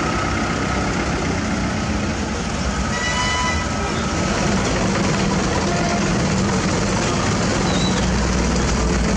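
Steady din of idling diesel truck engines with crowd chatter, and a short high tone about three seconds in.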